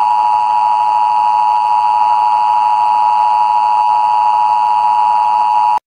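Broadcast bars-and-tone test tone: a loud, steady beep at a single pitch near 1 kHz, the signal that goes with colour bars when a TV feed drops out. It cuts off abruptly near the end.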